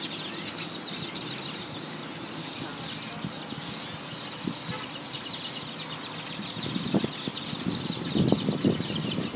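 A large flock of birds chirping and calling, a dense chatter of many overlapping high calls. In the last couple of seconds, louder irregular low bumping noises come in over it.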